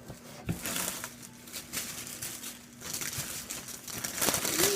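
Packing material crinkling and rustling as a handbag is unwrapped and pulled from its box, in irregular handling bursts that grow louder about three seconds in.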